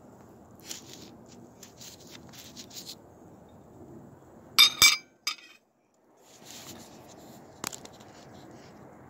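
Metal fork and fingers working on a ceramic plate: light scratches and ticks, then a quick pair of sharp, ringing clinks about halfway through, followed by softer clicks.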